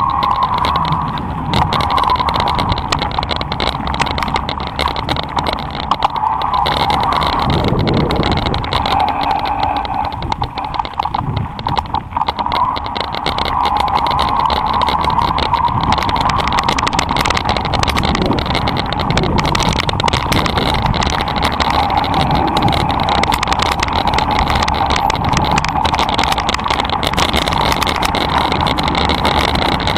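Electric mountain bike ridden over a rough dirt and gravel track. The assist motor gives a steady whine that wavers up and down in pitch, over the constant rattle and knocking of the bike on the bumps.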